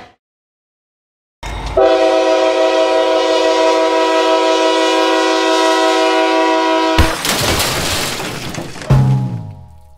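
A real railroad train horn sounds one long steady chord of several notes for about five seconds, after a second and a half of silence. It cuts off suddenly into a rushing noise, with a sharp thump and a falling low rumble near the end.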